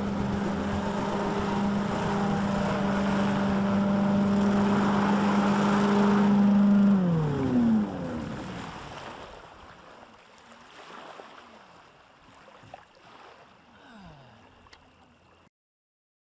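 DeLorean hovercraft's engine and fans running at a steady pitch, then winding down with a falling pitch about seven seconds in as the craft shuts off, fading to quiet.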